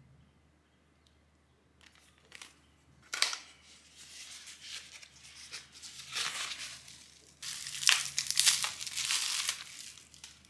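Bubble wrap and a cardboard mailer being handled as an item is unwrapped: crinkling and rustling in uneven bursts, with a sharp crackle about three seconds in and the loudest crinkling near the end.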